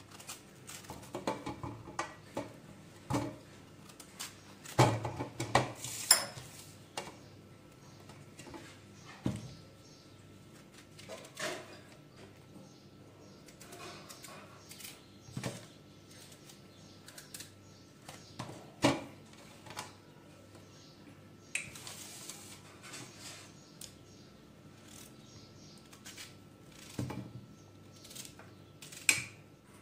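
Irregular knocks, clicks and scrapes of a knife peeling and cutting a pumpkin, with chunks set down on a steel plate; the loudest knocks come about five and six seconds in.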